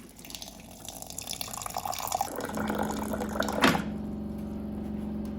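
Already boiled water being poured for a cup of tea, with a sharp click about three and a half seconds in and a steady hum through the second half.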